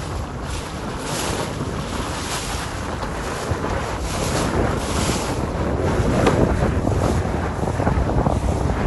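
Wind buffeting the microphone over rushing, splashing water, growing louder in the second half.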